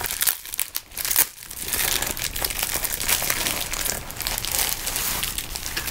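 Pink metallic plastic bubble mailer crinkling and crackling in the hands as it is handled and reached into, a dense run of small crackles.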